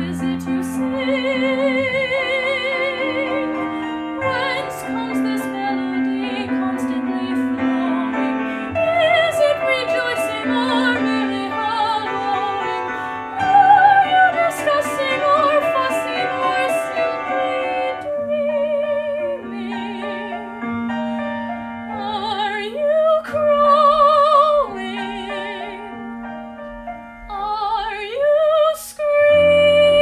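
A woman singing in a classical soprano style with wide vibrato over piano accompaniment. She holds long notes, and the loudest, highest phrases come about halfway through.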